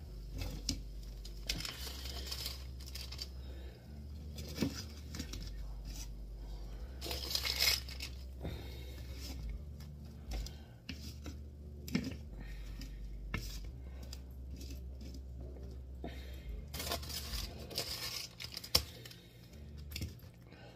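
A spatula scraping and lifting baked fries off a foil-lined baking sheet: the aluminium foil crinkles and rasps in irregular scrapes, with a few light clicks of the utensil against the pan.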